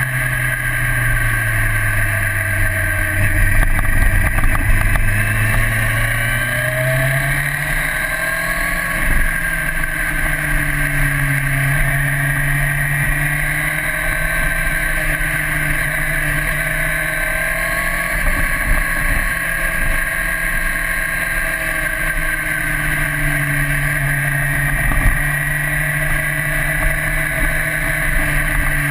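A 1998 Honda CBR900RR Fireblade's inline-four engine, heard from on board while the bike is ridden. The revs drop about two seconds in and climb again about seven seconds in, then rise and fall gently with the throttle.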